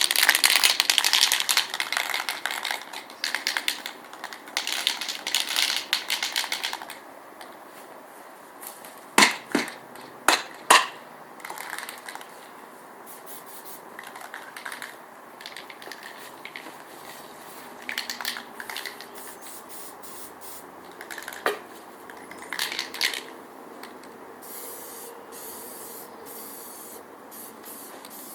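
Aerosol spray paint can hissing in long passes, then shorter, fainter bursts. About nine to eleven seconds in there are three sharp clicks or knocks.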